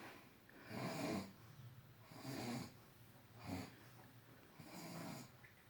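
A man snoring in his sleep: four noisy snoring breaths, about a second to a second and a half apart.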